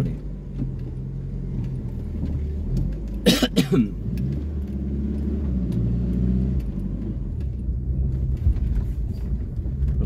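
Low-slung car's engine running at low speed as it crawls over a rough gravel road, heard from inside the cabin, with small ticks and rattles from the stones. A short loud burst, like a cough, about three and a half seconds in.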